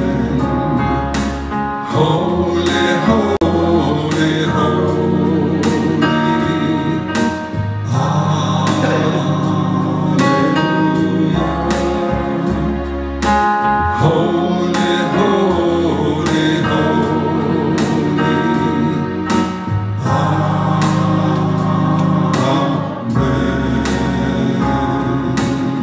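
Gospel praise song: voices singing long drawn-out lines over a keyboard accompaniment with held bass notes that change every few seconds.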